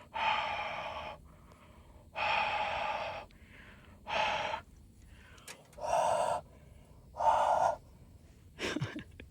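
A person blowing hard into a truck's starter relay five times, short forceful breaths about every second and a half, to clear or warm a relay suspected of being frozen.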